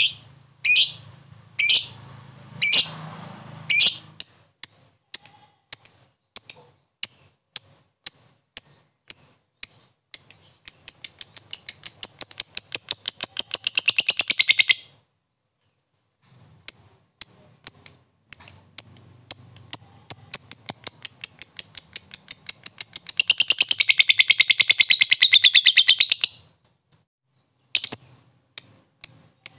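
Lovebird giving sharp single ticking chirps, a couple a second, that speed up into a long, rapid, continuous chattering trill (the 'ngekek' song). The trill stops dead after about five seconds and the same build-up follows: ticks speeding into a second long trill, then ticking again near the end.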